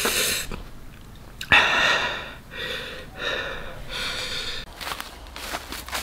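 A man breathing out hard through his open mouth, about five loud airy breaths roughly a second apart, from the burn of very spicy chili food. A few faint clicks near the end.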